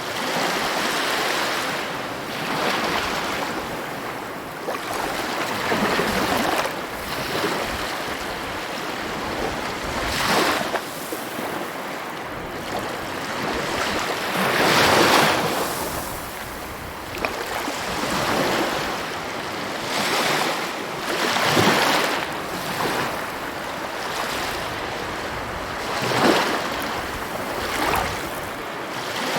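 Sea waves breaking and washing on the shore, a continuous hiss that swells and falls back every few seconds, the biggest surge about halfway through.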